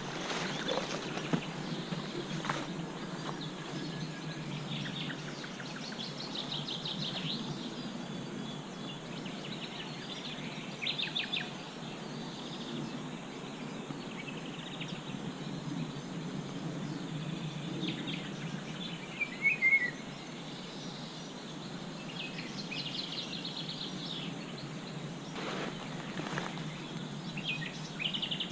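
Several songbirds singing in spring, with repeated high trills and chirps and a louder descending call about two-thirds of the way through, over a steady low background rush.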